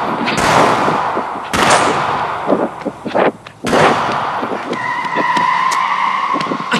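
Three sudden loud bangs, each trailing off over about half a second, then a steady high whine lasting about two seconds near the end.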